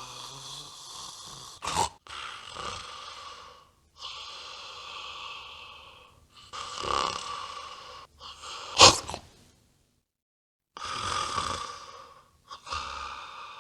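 Sleeping dogs snoring: a series of long, hissing snoring breaths, each one to two seconds long, with short pauses between them. There is a short sharp snort about two seconds in and a louder one about nine seconds in, which is the loudest sound, followed by a pause of about a second.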